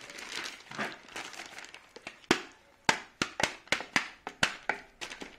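Wet, sticky pizza dough being stirred in a bowl: a soft squelching rustle at first, then, from about two seconds in, a quick run of sharp smacking clicks, three or four a second.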